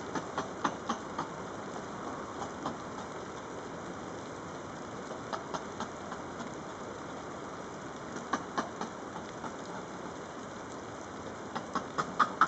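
An animal's call of sharp clicking or knocking notes in short bursts: several at the start, a few more every few seconds, and a faster run of about eight a second near the end, over a steady hiss.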